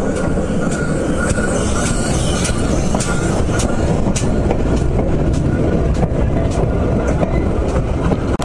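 Steam tank engine and its coaches rolling slowly past at very close range: a loud steady rumble with sharp irregular clicks from the wheels over the rails.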